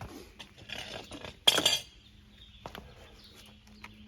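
Loose metal hardware clinking as it is handled, with a louder clatter about one and a half seconds in, then a few light clicks.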